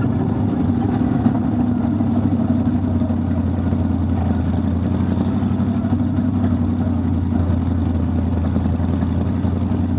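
Vintage modified race car's engine running steadily at low revs, heard from inside the cockpit, with a deep even drone and no revving.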